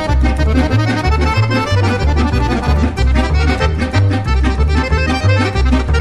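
Accordion music with a bass line stepping between low notes in a steady beat.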